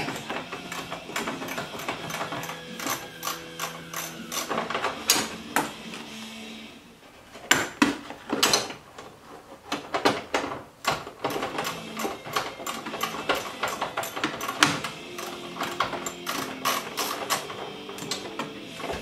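Hand ratchet clicking in runs as it backs out the bolts of a convertible top's rain rail, with a few louder metal knocks and a short pause a little before halfway.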